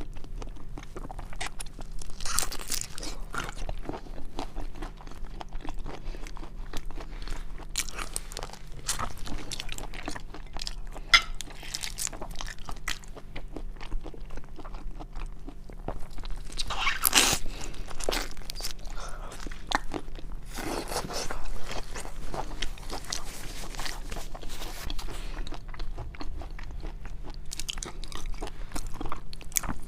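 Close-miked eating of seafood: irregular crunching, biting and wet chewing, with louder crunches about two seconds in and again about 17 and 21 seconds in, over a faint steady hum.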